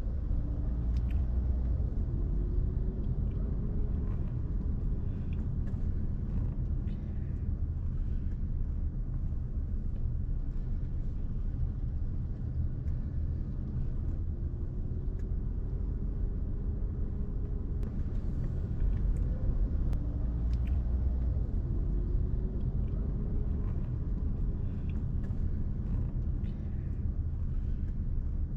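Car engine and road rumble while driving, heard from inside the car: a steady low drone, with the engine note slowly rising in pitch as the car picks up speed three or four times.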